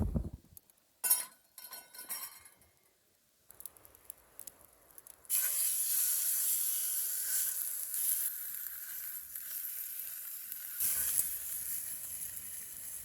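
A few metal clinks and clatters, then about five seconds in food starts sizzling in a hot pan: a sudden, steady hiss that keeps going, with a low rumble joining near the end.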